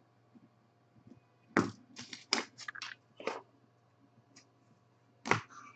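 A trading card in a hard plastic holder being handled: a quick run of sharp plastic clicks and crackles, then a couple of single clicks, as a paper sticky note is put on the holder.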